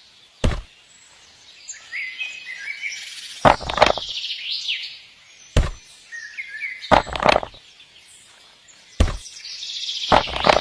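Birds chirping in short rising and falling calls, cut through by about eight sharp, loud thuds at irregular intervals.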